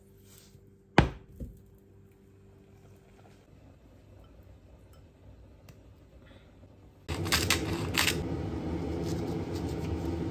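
Kitchen cookware clatter: two sharp knocks about a second in, then a quiet stretch. About seven seconds in, a steady low hum sets in, with a few light clinks.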